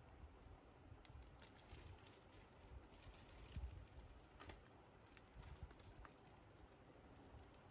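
Near silence with faint, irregular light clicks and taps.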